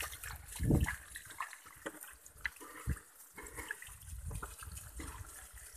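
Feet splashing and wading through shallow pond water, with a dull thump about a second in and another near three seconds.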